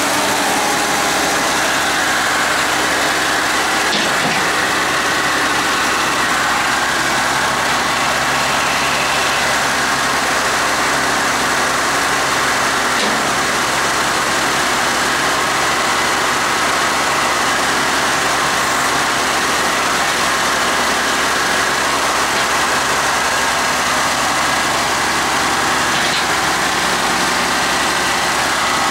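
Massey Ferguson 1105 tractor's six-cylinder diesel engine running steadily while its front loader raises and lowers the bucket.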